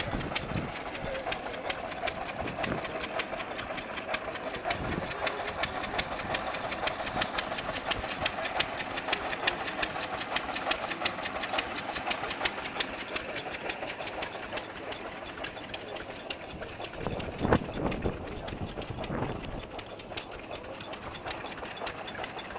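Small Dorman stationary engine running steadily, with a quick, even knocking beat. A brief low rumble on the microphone near the end.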